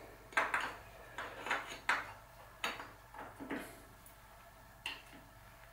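Metal tools clinking and knocking against the bike's bottom bracket during fitting of the bearing cups: about nine short, sharp clinks at irregular intervals.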